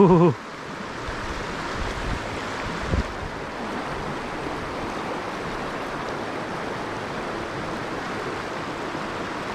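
Steady rush of a shallow river riffle, water running over rocks, with one brief thump about three seconds in.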